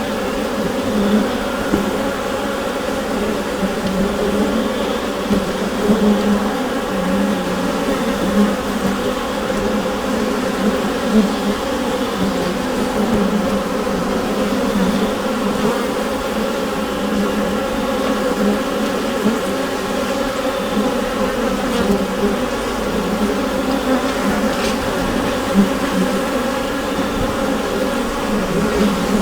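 Honeybee colony inside a beehive: many bees making a dense, steady hum.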